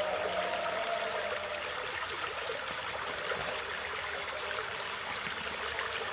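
Shallow stream running over rocks, a steady rushing wash of water.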